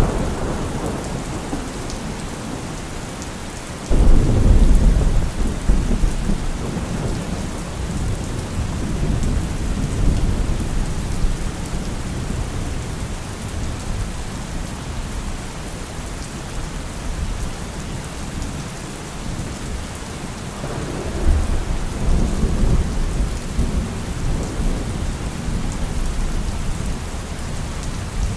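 Steady rain falling, with rolling thunder: a sudden loud rumble about four seconds in that rolls on for several seconds, and another rumble building around the last third.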